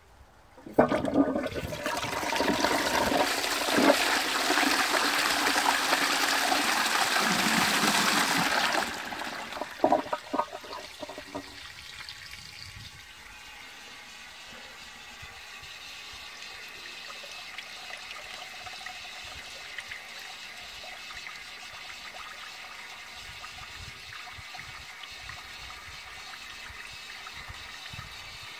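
Restored 1930s F Beale & Sons 'Burlington' cast-iron high-level cistern flushing: a loud rush of water down the flush pipe for about eight seconds, a few knocks as the flush ends, then the quieter steady hiss of its high-pressure float valve refilling the 2-gallon cistern.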